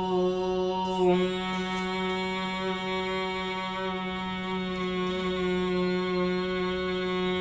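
A woman chanting Om in one long held breath on a single steady note, a pranayama-style Om chant with a short 'O' and a long 'M'. The tone brightens slightly about a second in, then holds.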